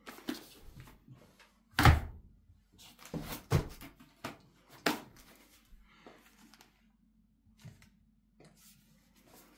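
Shrink-wrapped trays of metal cat-food cans handled and lifted out of a cardboard box: several dull knocks and clunks against the cardboard, the loudest about two seconds in, with rustling of plastic wrap and cardboard between.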